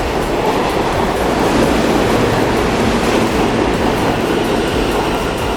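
New York City subway train running through the station, a loud, steady rumble of wheels on rail.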